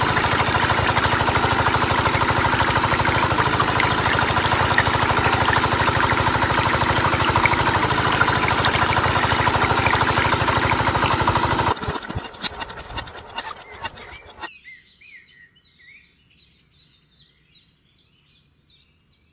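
A small model-machine motor running steadily with a fast rattle, cutting off about twelve seconds in and dying away in uneven spurts over the next couple of seconds. Afterwards only faint bird chirps are heard.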